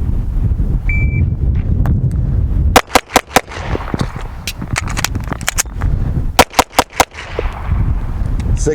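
A shot timer beeps once about a second in. A S&W M&P 2.0 pistol then fires four quick shots to slide lock, there is a pause of about two and a half seconds for the empty-gun magazine change, and it fires four more quick shots. Wind rumbles on the microphone throughout.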